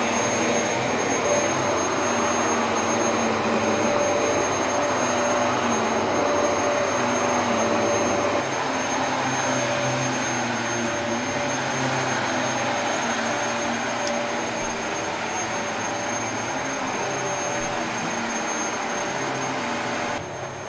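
Vacuum cleaner running steadily, a drone with a few steady tones in it; it gets a little quieter about eight seconds in and drops again just before the end.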